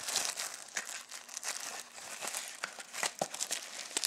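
Plastic wrapping on a Blu-ray package crinkling and tearing as it is pulled open by hand, with a busy run of small crackles.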